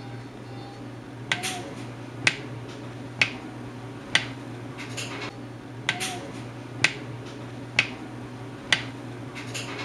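A quarter sitting on the wet mouth of a freezer-chilled plastic bottle, flipping up and clicking back down about once a second as the warming air inside expands and escapes past it.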